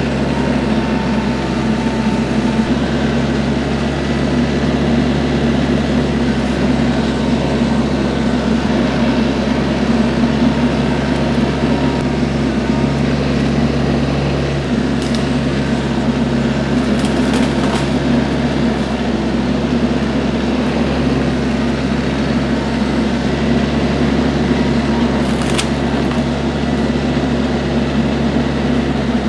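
TYM 474 compact diesel tractor engine running steadily.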